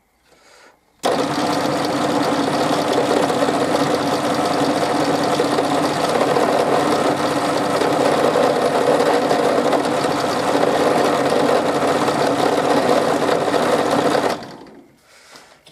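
Pillar drill motor switched on about a second in and running steadily, spinning a small wooden spinning top while it is rubbed over with an oil rag, then switched off near the end and quickly running down.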